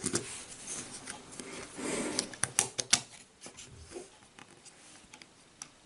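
An AA battery is pushed into the plastic battery holder of a quartz clock movement, with handling scrapes and plastic clicks. A cluster of sharp clicks comes between two and three seconds in as the battery seats against its contacts.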